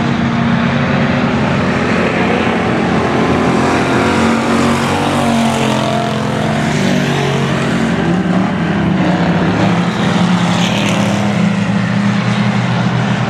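Hobby stock race cars running at racing speed around a dirt oval, several engines at once in a loud, steady drone. About halfway through, one car's engine pitch rises and falls as it passes close by.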